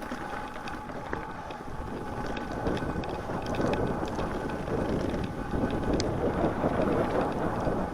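Mountain bike rolling along a snowy dirt trail: a rumble of tyres and bike noise that grows louder about two seconds in as speed picks up, with scattered small clicks and rattles.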